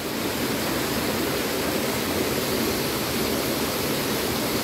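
Small stream running over rocks and trickling down little cascades into a pool: a steady rush of water.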